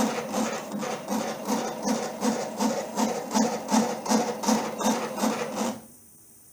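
Stepper motors of a small home-built three-axis CNC machine driving its axes in a steady run of short moves, about two and a half pulses a second with a low hum in each. The motors stop suddenly near the end, leaving only a faint hiss.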